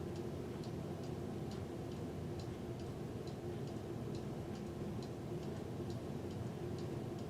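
1991 Hunter Summer Breeze ceiling fan coasting down after being switched off, with a light, even tick about twice a second over a steady low hum.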